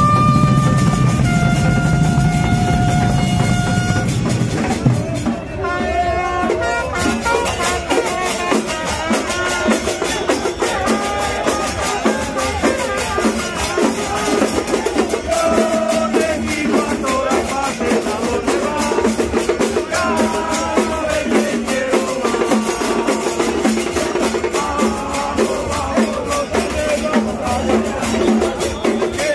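Fans' street band of trumpets and drums playing a terrace chant. For about the first four seconds the trumpets hold long notes over steady drumming, then a crowd sings the chant over the drums and brass.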